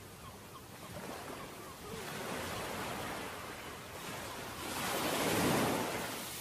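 Sea water washing and rushing, with wind buffeting the microphone; the rush swells to its loudest about five seconds in.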